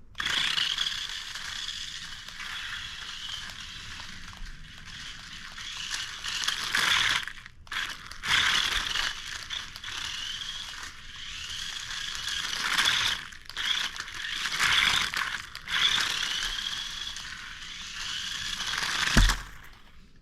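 RC crawler's motor and gears whining at full speed, the pitch rising and falling as it speeds up and slows, with a couple of brief pauses.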